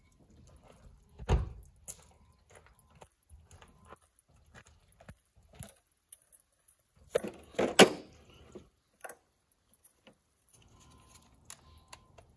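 Irregular knocks and clatters of tools and parts being handled during work on a tractor, with one heavy thump about a second in and a cluster of louder knocks near eight seconds in.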